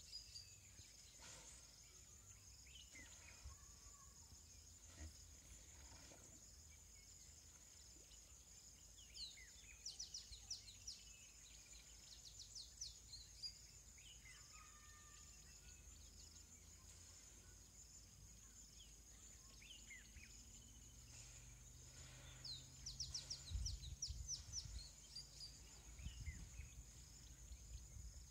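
Faint birdsong in quick runs of short, descending chirps over a steady high-pitched insect drone. A low rumble with a few dull thumps comes in near the end.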